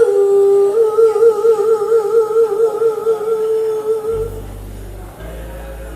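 A woman singing a long held note with a wide, even vibrato for about four seconds. Low sustained bass notes of the accompaniment then carry on to the end.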